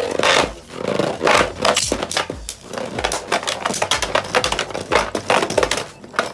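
Two Hasbro Beyblade Burst tops, Turbo Achilles and Union Achilles, spinning and clashing in a plastic stadium: a rapid, irregular clatter of hard plastic and metal knocks with a scraping rattle.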